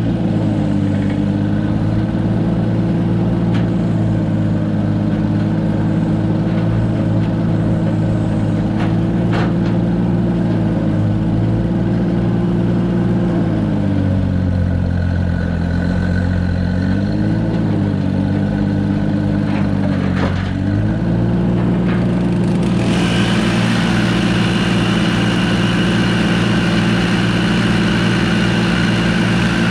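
Loader's engine running steadily; about halfway through its speed drops for several seconds, then comes back up. Near the end a second, smaller, higher-pitched engine starts running on top of it.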